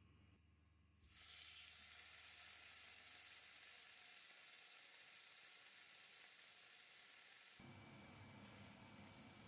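Cheese toast and a slice of brisket sizzling in a ceramic frying pan. The sizzle starts abruptly about a second in and holds steady. Near the end a spatula works under the food, adding a low scraping rustle.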